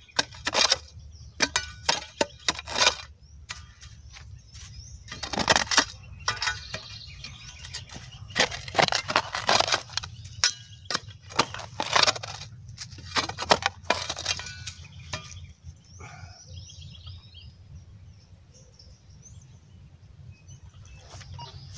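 Small Tramontina hand shovel chopping and scraping into dry, grassy soil to dig out a metal-detector target: a quick, irregular run of strikes and scrapes that stops about fifteen seconds in, leaving faint outdoor background.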